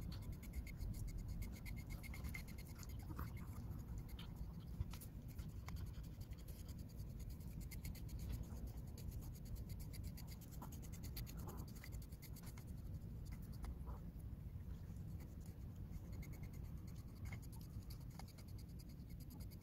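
A deshedding comb raking through a short-haired dog's coat in quick, repeated strokes, a soft steady scratching. It is pulling out loose shedding undercoat.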